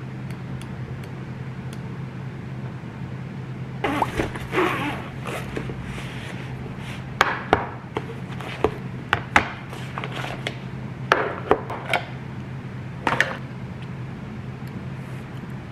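Fabric rustling as an insulated lunch bag is opened, then a string of sharp clicks and knocks as lidded stainless steel lunch boxes are taken out and their snap lids unclipped. A steady low hum runs underneath.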